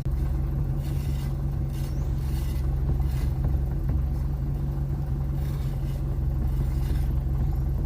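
Nissan Versa's engine idling steadily, with a few faint knocks from the steering. The knocking is the steering noise that tightening a bolt has not cured, which the mechanic traces to a loose, worn steering shaft joint.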